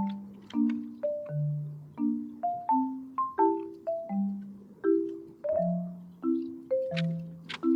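Background music: a gentle tune of short ringing notes that fade after each strike, over a lower bass line, with a light hissing percussion near the end.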